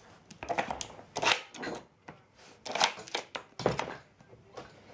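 Irregular clicks, knocks and scuffs from a dog moving about close to the microphone on a wooden floor, in a few short clusters.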